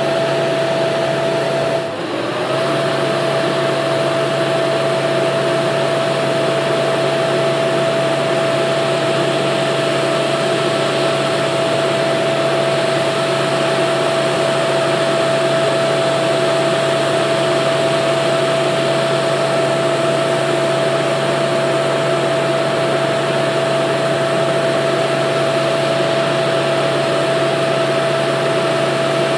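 Steady engine drone with a constant high whine held at one pitch, briefly broken about two seconds in.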